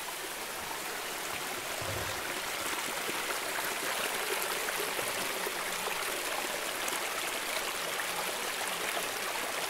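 Flowing river water rushing steadily, an even hiss of moving water.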